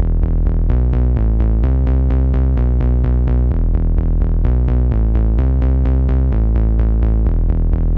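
Electronic background music: a synthesizer playing quick repeating notes, about four a second, over a deep, steady bass line.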